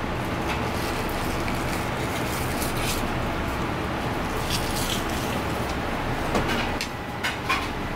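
A steady low rumbling background noise, with a few short clicks and scrapes of a steel knife against a plastic cutting board as a fish fillet is skinned; two sharp clicks come near the end.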